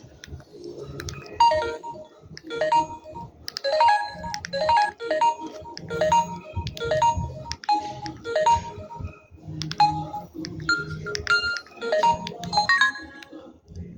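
Samsung GT-C3053 mobile phone ringtone playing: a quick melody of short notes over a low accompaniment.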